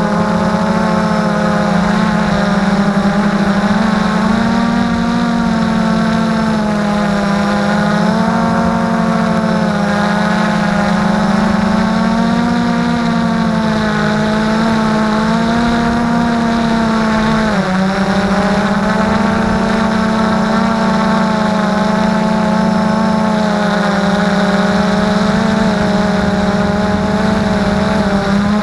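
Multirotor drone's electric motors and propellers hovering, heard from its onboard camera: a steady, loud buzzing whine whose pitch wavers up and down as the motors correct. The pitch dips briefly a little past halfway, then recovers.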